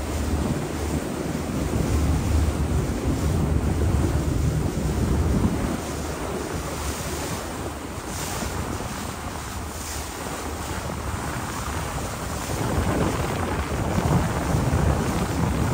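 Wind rushing over the microphone on the deck of a moving river cruise boat, with a low rumble underneath. The wind is stronger for the first few seconds, eases through the middle, and picks up again near the end.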